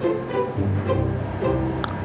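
Background score of light string music: short plucked notes in a bouncy rhythm over a low bass line. A brief bright ting sounds near the end.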